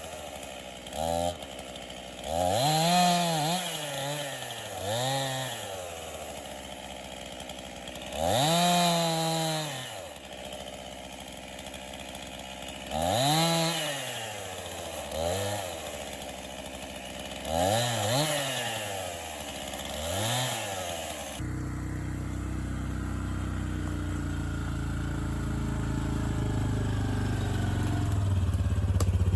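50cc gas chainsaw revving up to full throttle and back down to idle about eight times while bucking ash logs into firewood rounds. About 21 s in, the sound cuts abruptly to a lower, steady engine note that slowly grows louder.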